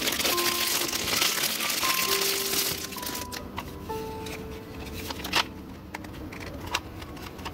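Clear plastic packaging crinkling as it is unwrapped from a small item, over soft background music with a simple melody; the crinkling dies down about three seconds in, leaving a few sharp clicks near the end.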